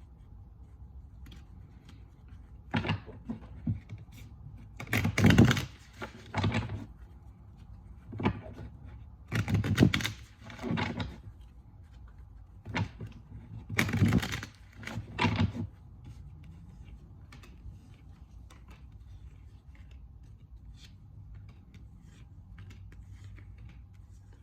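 Tarot deck being shuffled by hand: a series of short shuffling bursts for about the first fifteen seconds, then only light ticks and clicks of the cards.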